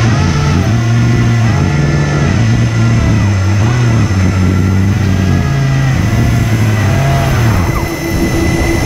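The HP server fans of a 3D-printed RC hovercraft running hard as it drives: a loud, steady whine whose pitch steps up and down as the throttle changes.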